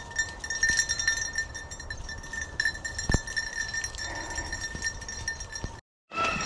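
Small bell jingling steadily, as on a beagle's collar, over crunching and rustling of dry leaves and brush. The sound drops out for a moment near the end.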